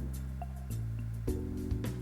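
Background music: a lounge track with a bass line and a light, regular beat.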